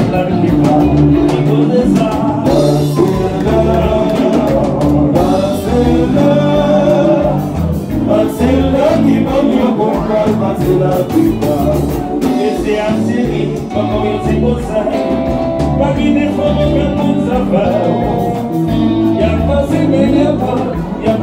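Live Haitian konpa dance band playing, with male singers singing over steady bass and drums.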